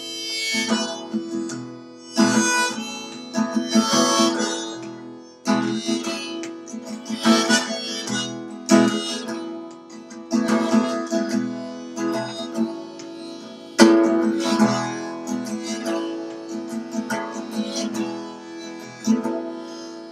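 Harmonica in a neck rack played in repeated phrases over strummed acoustic guitar, one player on both instruments, with no singing.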